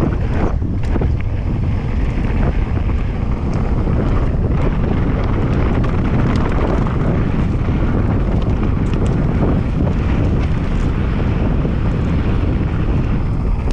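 Wind buffeting the microphone: a loud, steady rumble with no break.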